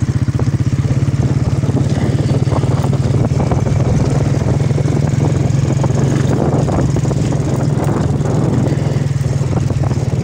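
Small commuter motorcycle's engine running steadily at low speed while the bike rides slowly over a rough gravel track, its engine noise one the rider calls bad.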